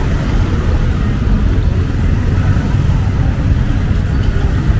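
City street traffic: a steady low rumble of passing vehicles.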